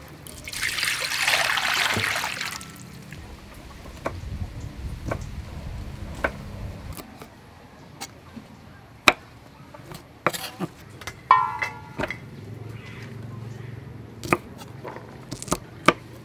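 A cleaver chopping yard-long beans on a wooden chopping board in a handful of sharp, irregular strokes. Near the start there is a loud hiss lasting about two seconds.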